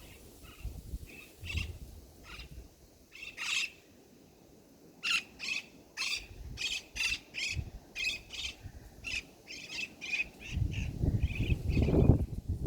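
A bird calling: a string of short, sharp calls, a few scattered at first, then coming about two a second from halfway through. A low rumble rises near the end.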